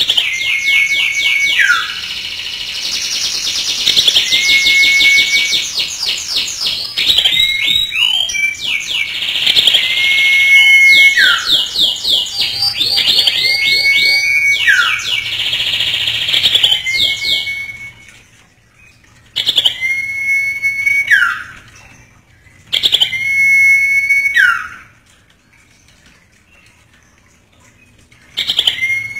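Iora (cipoh) singing: a whistled note held level and then dropping sharply in pitch, repeated every couple of seconds. Through the first half it sits over fast, dense chattering. Later the calls come singly with short pauses between them.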